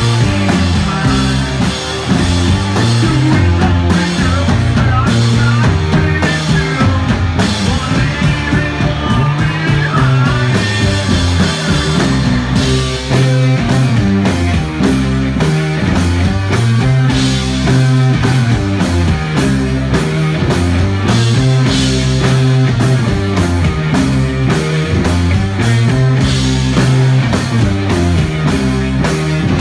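Live heavy psychedelic rock band playing loudly: electric guitar and a drum kit driving over a moving low bass line.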